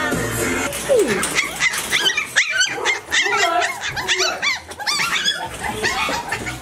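Several toy poodle puppies yipping and barking in a quick run of short, high calls, starting about a second in.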